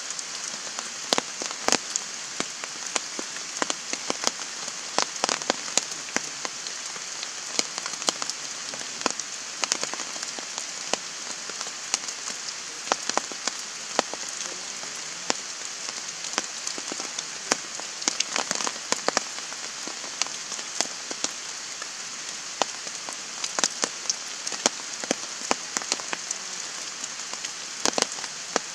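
Heavy rain falling: a steady hiss with frequent sharp, irregular ticks of nearby drops striking.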